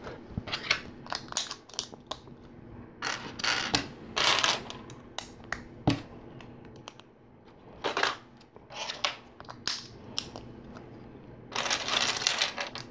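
Plastic LEGO pieces clicking and clattering as they are handled and pressed together, in scattered bursts of several quick clicks.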